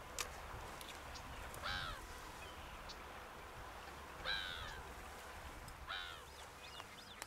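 A bird calling three times, short calls a couple of seconds apart, over faint outdoor background noise; a single click sounds just after the start.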